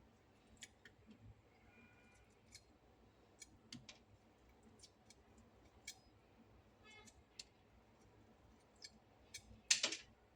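Faint, scattered clicks and taps of small objects being handled, with a short, louder clatter near the end.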